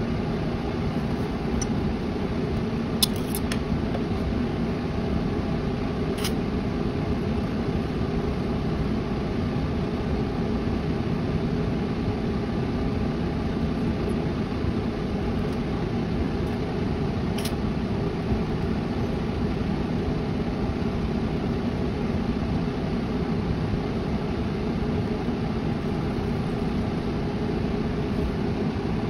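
Steady, even mechanical noise, mostly low-pitched, from a TIG welding setup tack-welding stainless steel exhaust pipe sections, with a few brief sharp ticks scattered through.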